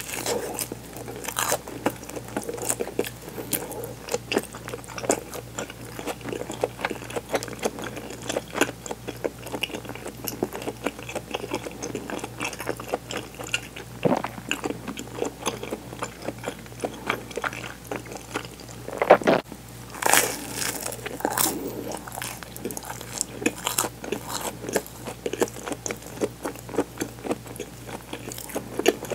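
Close-miked crunching and chewing of toasted sandwich bread filled with mozzarella: crisp bites and chews packed close together, with a few louder crunches about halfway and two-thirds through.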